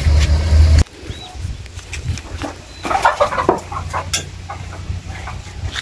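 A loud low rumble that cuts off abruptly about a second in, then hens clucking and squawking amid rustling and knocks as they are grabbed inside a coop. The birds are spent commercial laying hens.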